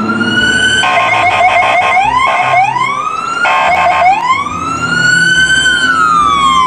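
Electronic police siren, loud: a wail that rises and falls, cut twice by stretches of fast pulsing tone, and ending on a slow fall in pitch.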